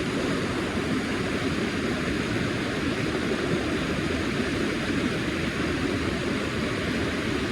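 River water rushing steadily: a constant, even noise.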